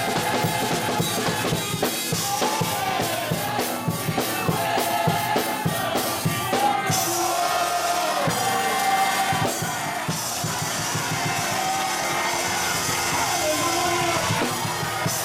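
Live gospel music: a choir singing over a drum kit, with the congregation clapping along.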